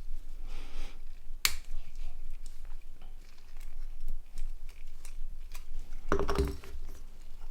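Scattered small clicks and handling noises of plastic phone parts and tools being worked on a bench, with a sharper click about a second and a half in and a busier run of clicks and rustling around six seconds in.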